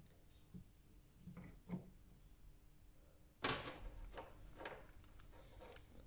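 Hard plastic parts of a dismantled Mercedes COMAND control-knob unit clicking and knocking as they are handled: a few faint clicks, then a sharper knock about three and a half seconds in, followed by several lighter clicks and rattles.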